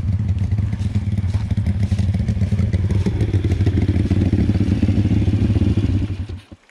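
Pit bike's small single-cylinder engine running steadily, its pitch holding level, then cutting off abruptly near the end.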